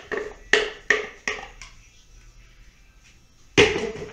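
Percussive background music, a few sharp taps about three a second, that fades out before halfway. Near the end, a single loud knock: a plastic blender jug set down on a marble counter.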